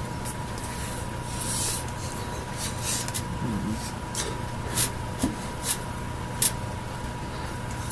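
Hands slapping, tapping and brushing against each other and against a shirt during sign language: irregular soft slaps and swishes, about one or two a second, over a steady electrical hum.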